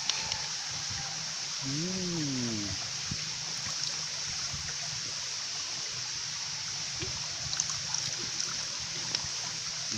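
Vinegar being poured and trickling over raw clams in a dish, a steady liquid hiss. A short hummed "mm" comes about two seconds in.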